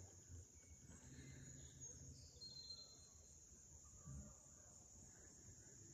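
Near silence with a faint, steady, high-pitched insect chorus, such as crickets or katydids, and soft low rustling beneath it.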